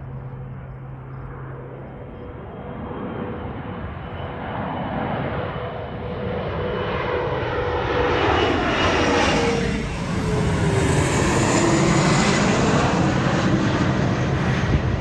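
Mitsubishi CRJ-900 regional jet on final approach passing low overhead, its two rear-mounted GE CF34 turbofans growing steadily louder as it nears. A steady engine tone drops in pitch as the jet goes over, about two-thirds of the way through, and the jet noise stays loud to the end.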